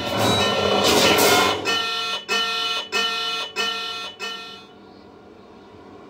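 Film soundtrack music played through in-ceiling home theater speakers (Klipsch CDT-5800-C II) and heard in the room. A loud swelling chord gives way to a pulsing chord repeated about five times, a little over half a second apart. It cuts off sharply near the end, leaving only a faint steady hiss.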